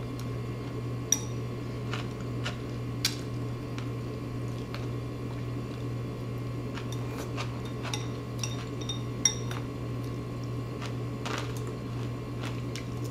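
Wet chewing and slurping of chamoy-dressed spiralized cucumber, with chopsticks clicking against a glass bowl. A run of small ringing clinks comes about eight to nine seconds in, over a steady low hum.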